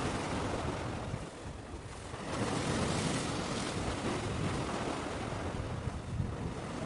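Steady rushing outdoor noise of wind on the microphone and sea water, heaviest in the low end, easing for about a second a little over a second in.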